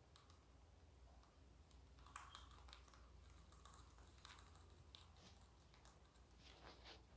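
Faint, irregular crisp clicks and crunches of a rabbit nibbling and chewing dry hay stems.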